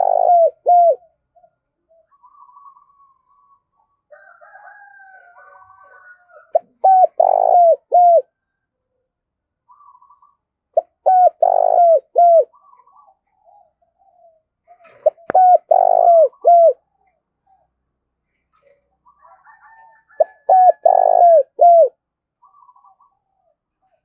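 Spotted dove cooing its rhythmic call: a phrase of three or four low, arched coos, repeated five times about every four to five seconds. Fainter, higher calls fill the gaps, and there is one sharp click about fifteen seconds in.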